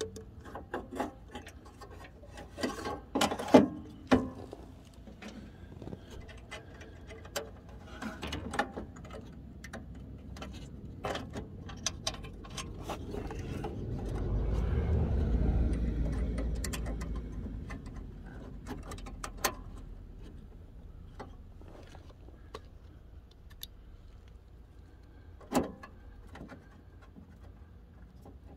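Scattered clicks, taps and rattles of hands fitting an LED headlight and its fittings into a pickup's headlight opening, with a louder cluster a few seconds in. A low rumble swells and fades through the middle.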